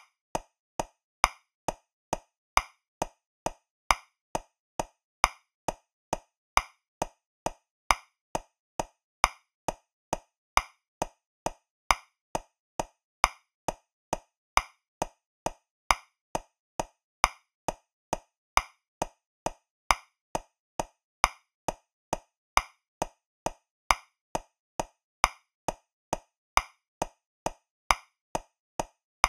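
Metronome clicking at 135 beats per minute in 3/4 time, about two clicks a second, with a louder accented click on the first of every three beats.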